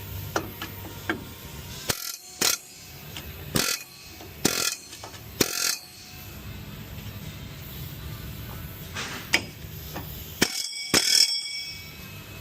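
Repeated short, sharp bursts of metal-on-metal banging on a Ford F-150's seized front wheel hub assembly, a few close together and then a cluster near the end with a high metallic ring. The hub is still stuck and barely moving.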